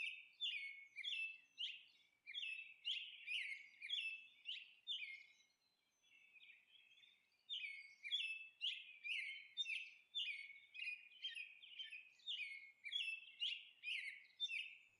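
Faint birds chirping: quick downward chirps, two or three a second, with a pause of about two seconds midway.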